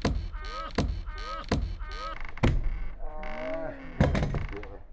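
Hammer stapler (hammer tacker) driving staples through synthetic roofing underlayment into a plywood roof deck: sharp knocks about two a second, then a pause and two quick strikes about four seconds in. Short rising squeaky tones come between the knocks.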